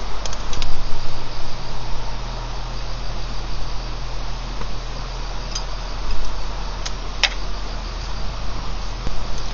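Crickets chirping steadily under a constant low hum, with a few sharp clicks, the loudest about seven seconds in.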